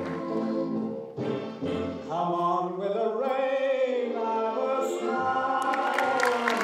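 Performance music with a sung vocal line, a held note swelling and falling around the middle.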